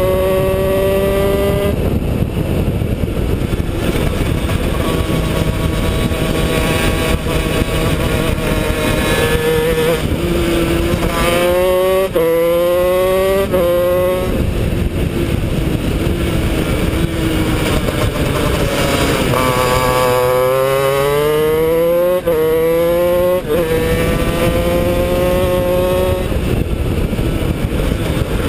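Honda CR125 125cc two-stroke single-cylinder engine of a shifter kart at full throttle, heard onboard. Its pitch climbs and drops sharply at each gear change, with two quick upshifts about a third of the way in and two more about three quarters of the way in, and the note sags in between as the kart slows for corners.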